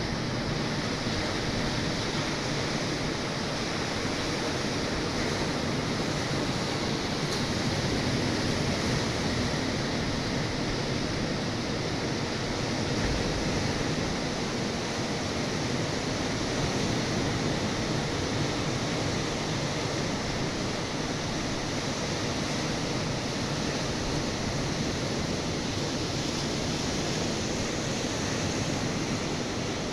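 Ocean surf breaking and washing on a sandy beach, a steady rush of noise.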